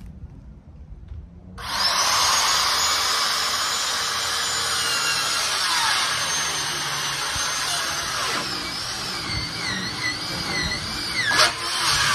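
Electric circular saw starting up about a second and a half in and cutting through plastic shed panels with a wood-cutting blade. Its high whine holds steady at first, then sags and wavers in pitch as the blade bogs in the plastic, dipping sharply near the end.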